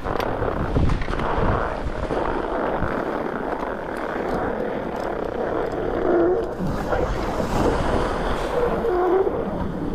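Wind buffeting an action camera's microphone on an open ski slope, a steady rushing noise that rises and falls in strength. A couple of short, faint pitched sounds come through about six and nine seconds in.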